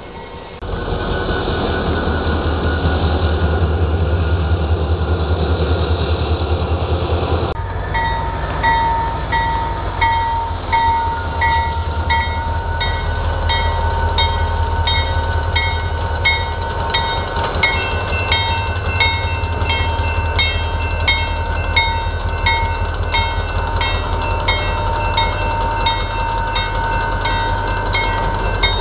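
GP40 diesel locomotive (EMD 16-cylinder turbocharged engine) running close by with a heavy low rumble. The sound changes abruptly about seven seconds in, and from then on a bell rings steadily about twice a second over the engine.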